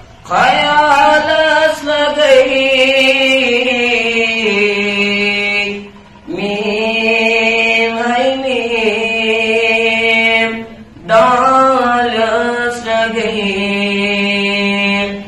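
A solo voice singing a Kashmiri naat in long, drawn-out phrases with ornamented turns of pitch, pausing briefly for breath twice, at about six and eleven seconds in. No instruments are heard.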